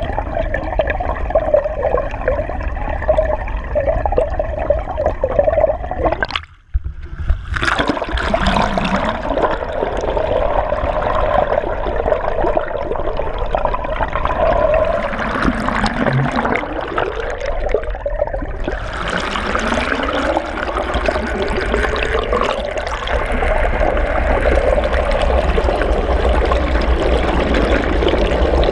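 Water rushing over a camera held underwater from a moving dinghy, with the dinghy's outboard motor droning through the water. The motor's pitch rises twice in the second half, and the sound drops out for about a second around six seconds in.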